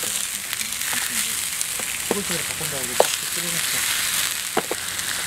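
Pork sizzling steadily on a hot flat griddle plate, with a few sharp clicks of metal tongs against the plate as the pieces are turned, the loudest about three seconds in.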